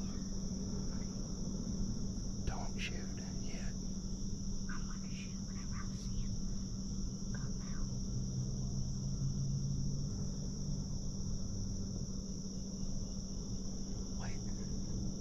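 Steady, high-pitched chorus of insects such as crickets, running unbroken, with a few faint short sounds scattered through it.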